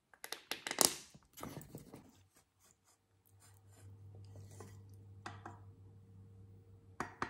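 A plastic squeeze bottle of sauce sputtering and clicking as it is squeezed onto tortillas, then a wooden spatula scraping cooked filling out of a frying pan, with a couple of sharper knocks near the end. A low steady hum sits under the second half.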